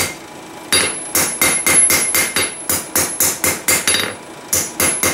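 Hand hammer striking a hot 3/8-inch rebar spoon handle on an anvil, about three to four blows a second with a ringing note from the anvil. The blows come in two runs with a short break between them, as the tapered end of the twisted handle is forged and straightened.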